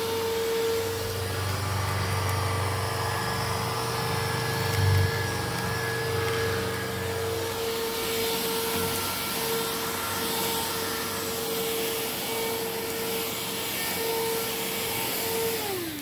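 Hoover cordless stick vacuum running with a steady motor whine, a lower rumble under it for the first half, and one brief thump about five seconds in. Near the end the whine drops in pitch and fades as the motor winds down.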